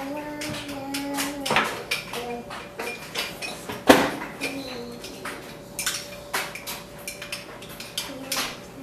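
Spoons and dishes clinking, scraping and knocking on a kitchen counter as a small child handles them, with one loud clank about four seconds in.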